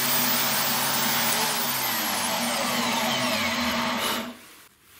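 Bosch GSB 21-2 RE electric drill in a drill stand running and boring a 9 mm hole through plywood, a steady motor whine with cutting noise that stops about four seconds in.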